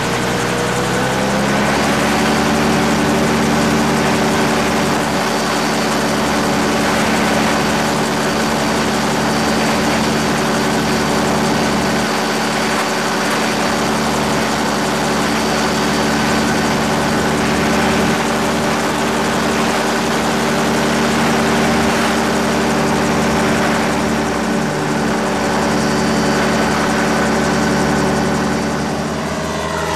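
Gyrocopter's Rotax 532 two-stroke twin engine and propeller running at flight power. The pitch rises over the first couple of seconds, then holds steady.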